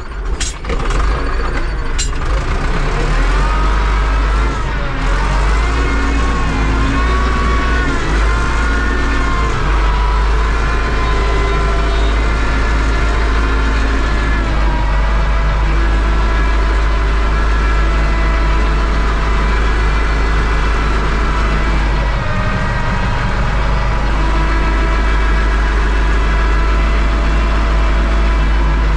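Farm tractor's diesel engine running, heard from inside the cab, its pitch rising and falling with the throttle during the first ten seconds, then steady. A few knocks in the first two seconds.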